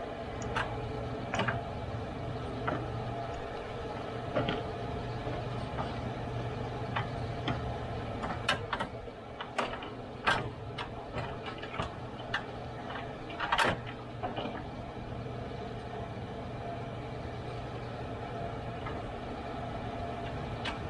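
Scattered plastic clicks and knocks of hands fitting parts around the radiator and its cooling-fan shroud, busiest about eight to fourteen seconds in, over a steady low hum.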